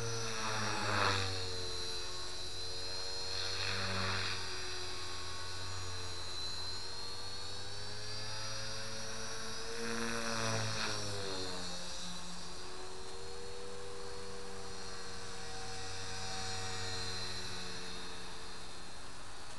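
Align T-Rex 450 Pro electric RC helicopter in flight: a steady motor and rotor whine. Its pitch dips and recovers with a louder rush of the blades about a second in, at about four seconds and at about ten seconds.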